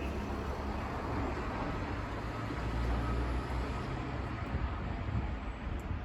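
Road traffic: a vehicle going by, a steady low rumble with tyre noise that swells a little around the middle.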